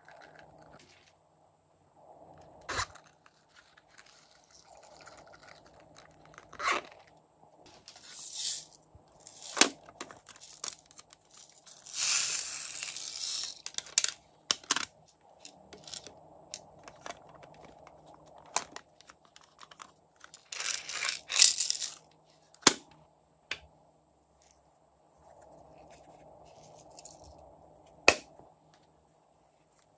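Small plastic toy containers being handled: a run of sharp plastic clicks and snaps as cases are opened and closed, with a few longer rustling hisses as glitter and beads are shaken out onto the slime.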